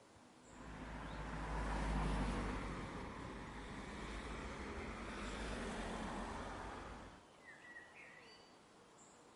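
A motor vehicle going by, a rumbling engine-and-road noise that swells about half a second in, holds for several seconds and cuts off abruptly. A few short bird chirps follow near the end.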